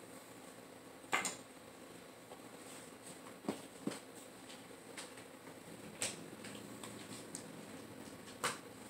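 Knives and sheaths being handled and set down on a wooden floor: about half a dozen sharp clicks and knocks, irregularly spaced, over a quiet background.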